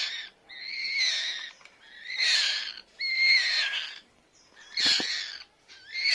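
A very young bird, fallen from its nest, calling over and over: harsh, raspy calls of about half a second to a second each, roughly one a second.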